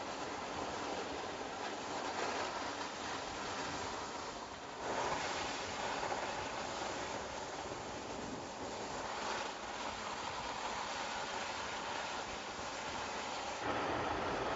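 Car driving on a wet road: a steady rush of tyre and wind noise. It steps up in level about five seconds in and again near the end.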